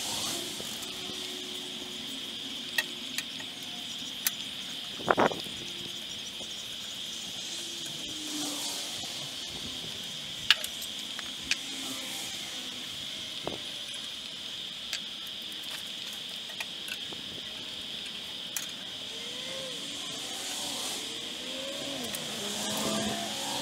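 Scattered sharp clicks and taps of tools and metal parts being handled at a homemade bandsaw's blade guide, with a louder knock about five seconds in, over a steady high-pitched background tone.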